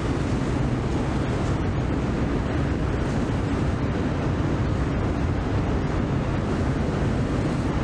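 The ferry MV Caledonian Isles' engines running with a steady low hum as she comes alongside the linkspan, mixed with wind noise on the microphone.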